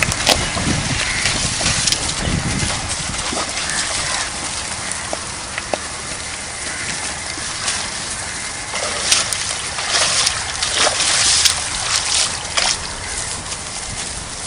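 Water sloshing and splashing, with many small crackling splashes over a steady rush.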